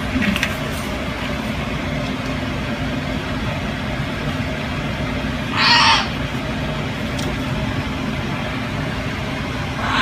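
Steady low hum of a vehicle in motion, with one loud harsh parrot squawk lasting about half a second midway through.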